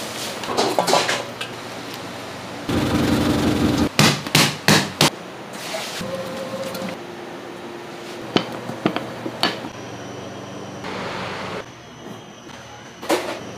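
Bakery work sounds: a steady rushing noise for about a second and a half, then a quick run of sharp knocks and clinks, with a few more single taps later.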